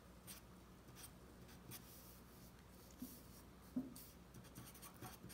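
Faint scratching of a felt-tip marker writing on a sheet of paper, with a couple of light taps about three and four seconds in.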